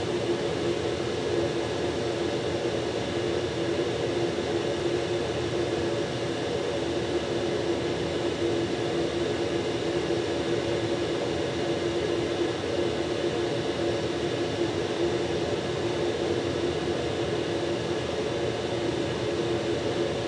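Steady whirring hum of a motor-driven fan running without change.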